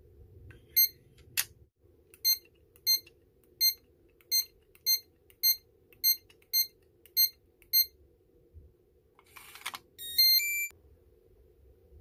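Evernet digital door lock's keypad beeping: about eleven short, identical high beeps, roughly two a second, as keys are pressed, with a sharp click among the first ones. Near the end a brief whir of the lock mechanism is followed by a short rising run of electronic tones.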